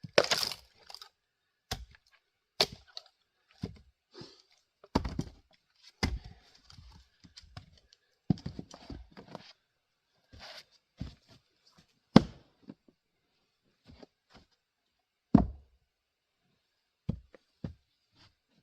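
Axe splitting grand fir firewood rounds: a series of sharp chops and knocks at irregular intervals, a few of them loud, with lighter knocks of wood in between.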